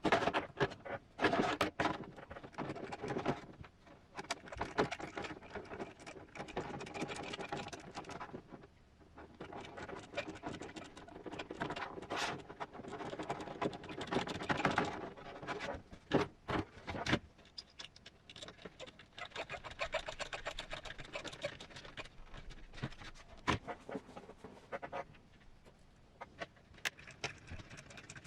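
Hard plastic RC body parts being handled and fitted by hand: irregular clicks, taps and scrapes, busier in patches, with a few sharper snaps.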